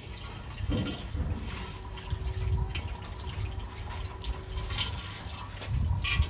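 Water running from a tap over a terracotta water pot as it is rinsed and rubbed by hand, with irregular splashing and trickling.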